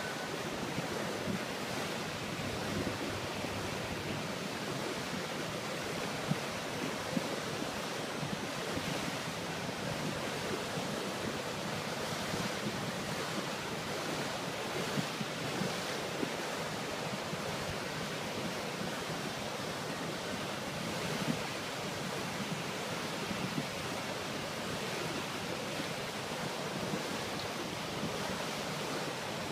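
Steady rush of wind and water on a lake under way, with wind buffeting the microphone.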